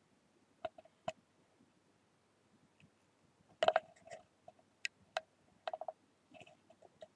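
Handling noise from sheets of drawing paper and the camera held close to them: a scatter of light clicks and taps, the loudest about halfway through.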